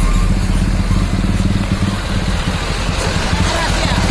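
Heavy dump truck's diesel engine running loudly close by, a steady fast-pulsing low sound.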